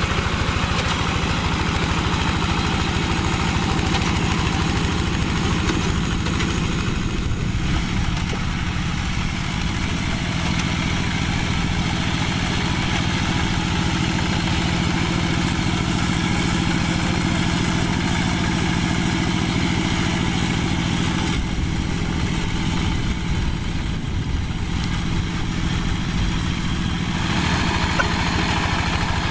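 Two-wheel walking tractor's single-cylinder diesel engine running steadily with a fast, even chugging, working under load as it pulls a plough through wet soil.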